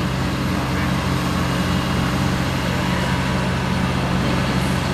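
Diesel engines of heavy demolition machinery, hydraulic excavators and a skid-steer loader, running steadily with a constant low drone.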